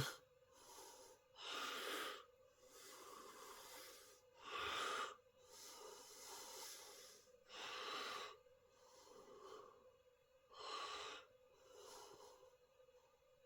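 Soft, slow human breathing close to the microphone, a breath about every one and a half seconds with the stronger ones about three seconds apart, over a faint steady electrical hum.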